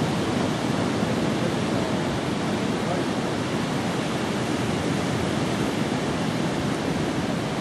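Sea surf breaking on the shore: a steady rushing wash of waves.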